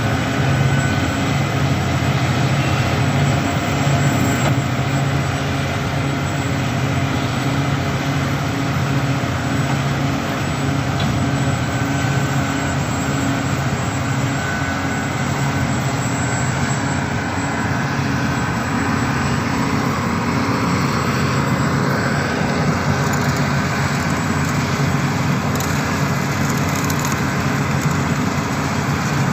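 Heavy diesel mining machinery running steadily: a low, even engine drone with no break.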